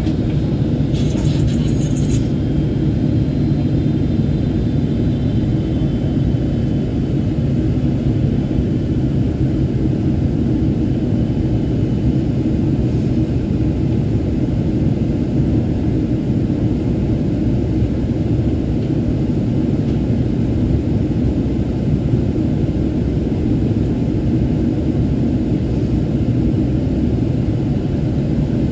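Steady low rumble of a jet airliner's cabin in flight: engine and airflow noise heard inside the cabin at a window seat.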